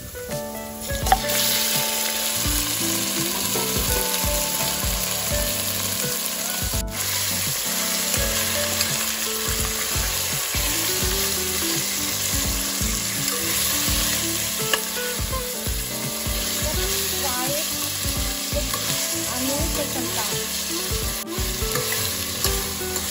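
Marinated mutton pieces sizzling as they fry in hot oil with fried onions in a stainless steel pressure cooker, stirred with a metal spoon. The sizzle starts loudly about a second in as the meat goes into the oil, then holds steady.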